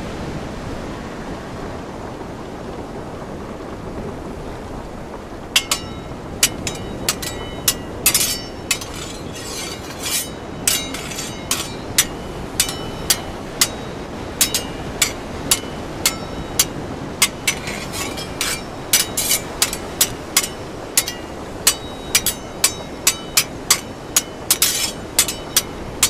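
Steady rain and wind noise; about five seconds in, sharp ringing metallic clinks begin and keep coming irregularly, roughly two a second.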